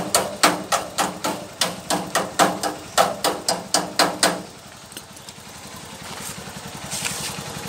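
A chipping hammer striking the welded steel tubing of a sidecar frame, knocking slag and spatter off the weld. It goes in a quick even run of about four ringing strikes a second, stopping after about four and a half seconds, with a low engine idle left underneath.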